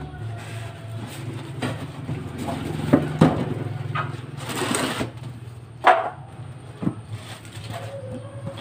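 A steady low machine hum with several sharp knocks over it: two in quick succession about three seconds in, then single ones near six and seven seconds.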